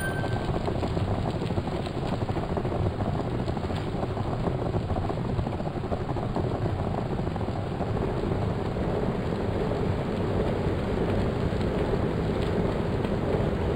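Steady rushing wind over the microphone and rolling noise of a bicycle being ridden along, with a brief high beep at the very start.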